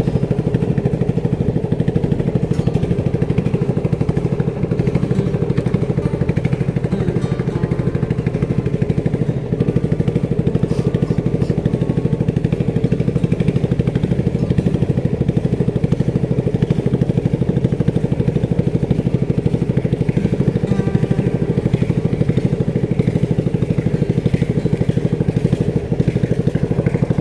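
Small boat's engine running at a steady speed, a loud, even drone with no change in pitch.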